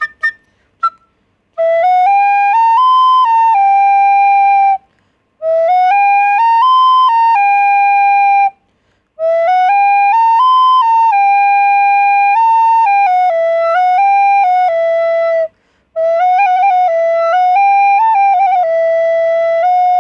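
Recorder (straight flute) playing a simple melody in four phrases with short breaths between them; the first two phrases are the same tune.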